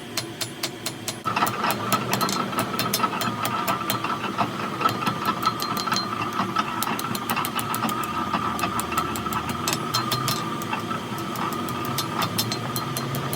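A motor-driven machine starts up about a second in and runs with a steady whine over a quick, continuous clatter of clicks or knocks.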